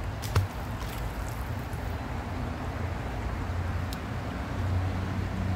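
Steady low rumble with a faint steady hum, like distant traffic, and one sharp slap about a third of a second in.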